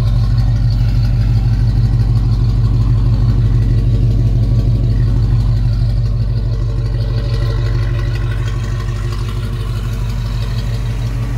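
1970 Jeep Wagoneer's engine idling steadily, heard close to its tailpipe, growing a little quieter near the end.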